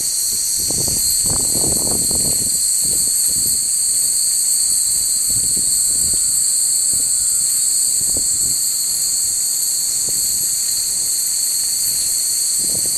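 A steady, shrill high-pitched insect chorus that does not change. Low rumbles of wind on the microphone come in gusts near the start and again toward the end.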